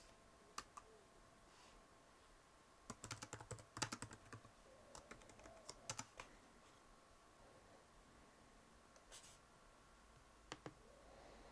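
Faint typing on a computer keyboard: a short run of keystrokes bunched about three to four seconds in, with a few scattered single clicks after.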